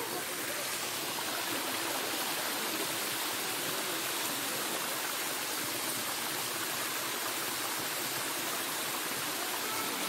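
Shallow rocky stream rushing and cascading over stones, a steady even hiss of running water.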